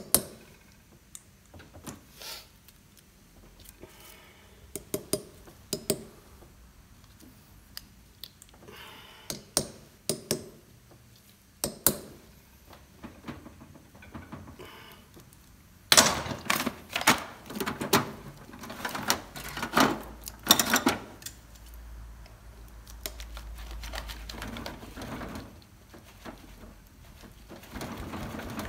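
Metal hand tools clicking and knocking against the steel bolts of a motorcycle brake disc: scattered sharp taps, then a dense run of loud knocks about halfway through.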